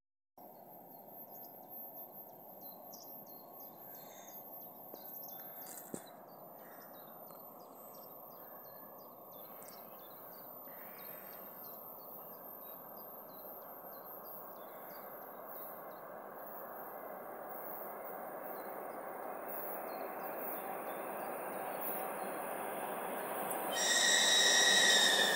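2TE116 twin-section diesel locomotive approaching with a loaded tank train, its rumble growing steadily louder, with birds chirping throughout. About a second and a half before the end the locomotive's horn sounds, loud and multi-toned, the loudest thing here.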